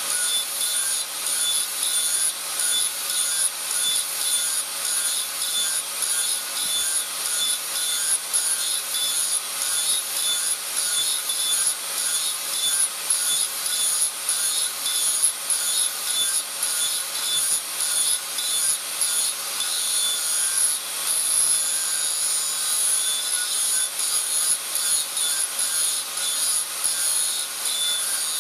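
Electric angle grinder running at speed, its disc grinding the edge of a forged steel axe head: a steady high whine over a harsh grinding rasp that rises and falls continually as the disc is worked against the metal.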